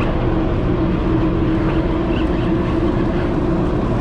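A party fishing boat's engines running, a steady drone with a constant hum over a low rumble.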